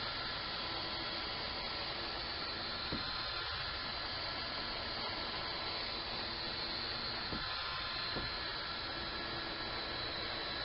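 Steady hiss with a faint high whine and low hum underneath, broken by three faint clicks: one about three seconds in and two close together about seven to eight seconds in.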